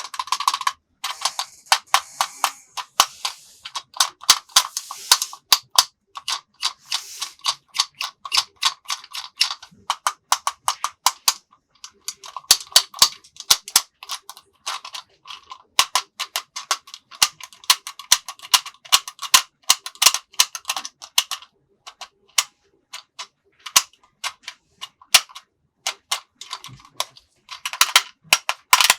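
Rapid, irregular clicks and taps, several a second, with short lulls.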